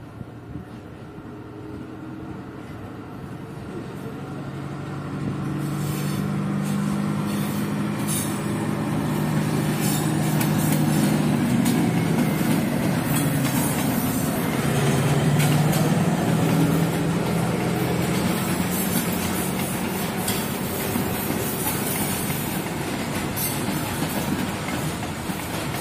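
Diesel locomotive approaching and passing with a long train of hopper wagons. Its engine drone grows louder over the first ten seconds and dips slightly in pitch as it goes by, then gives way to the steady rumble and clatter of the wagons' wheels on the rails.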